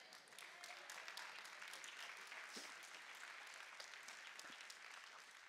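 Faint applause from a church congregation: a steady patter of many hands clapping that fades away near the end.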